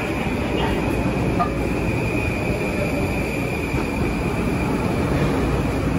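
Metro-North M8 electric multiple-unit train moving past at close range: a steady rumble of wheels and running gear with a steady high whine over it.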